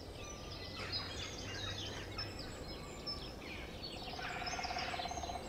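Small songbirds chirping and twittering in woodland: many short, high calls overlapping, with a rapid low trill for about a second and a half near the end.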